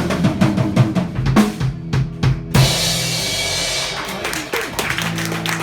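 Rock band playing an instrumental passage of a song, with drum kit (bass drum and snare) hitting steadily over bass notes. A quick run of drum hits comes about two seconds in.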